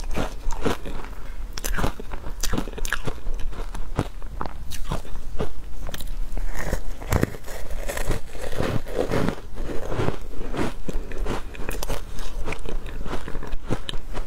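Ice coated in matcha powder being bitten and chewed: a dense run of sharp, irregular crunches as mouthfuls of the ice are broken up between the teeth.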